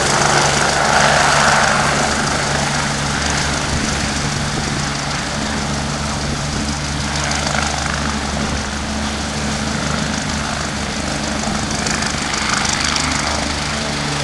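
ADAC BK 117 air-rescue helicopter landing: the rotor and turbines run loud and steady as it hovers low and sets down on its skids, settling slightly quieter after the first couple of seconds as it sits on the pad with the rotor still turning.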